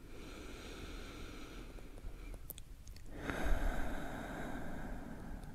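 A person's slow, deep breathing in a yoga resting pose: two long, soft breaths, the second, about three seconds in, louder than the first.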